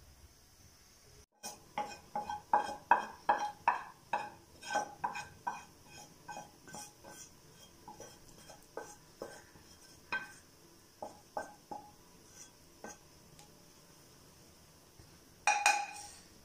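Wooden spatula knocking and scraping against a metal pan as roasted vermicelli is emptied into a pan of milk. It comes as a quick run of sharp taps, about three a second, that thins out after several seconds, with one louder clatter near the end.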